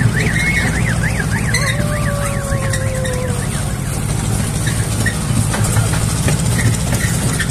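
Tractor engine running steadily as the tractor travels. For the first three seconds a high, siren-like tone warbles up and down about four times a second.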